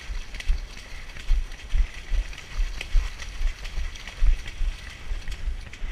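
A runner's footsteps on a wet, muddy grass trail, heard as dull thuds about two or three a second, each stride jolting the body-worn camera.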